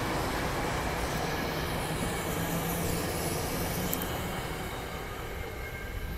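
SEPTA Regional Rail electric train passing on the track beside the platform, a steady rumble and rush of steel wheels on rail. The noise eases off near the end as the last car goes by.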